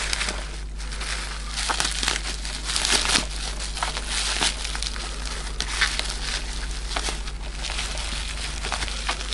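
Plastic bubble wrap crinkling and crackling as hands pull it open, a continuous run of small crackles.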